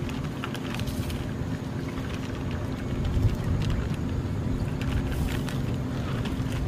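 A plastic bag of frozen corn crinkling in short bursts as the kernels are shaken out into a simmering sauce, over a steady low rumble.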